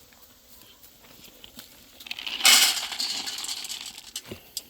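Dry animal food poured into a feed bowl: a dense rattle of many small pellets hitting the bowl, starting about two seconds in, loudest at first and tapering off over about two seconds.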